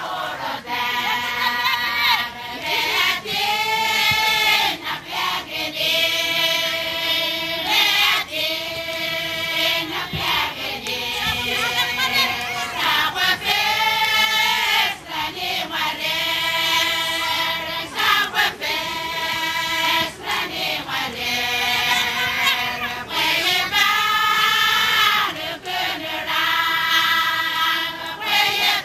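A group of voices singing a Satawalese dance chant in unison, in short repeated phrases of about two seconds, each rising and falling, with brief breaks between them.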